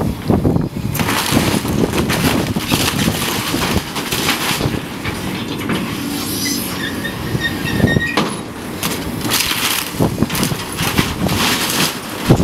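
Building demolition: heavy machinery running with a low rumble while debris crunches, cracks and clatters in repeated surges.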